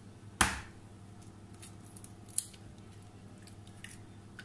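An egg cracked sharply against a bowl's rim about half a second in, then a lighter click and faint ticks of eggshell while the yolk is separated from the white.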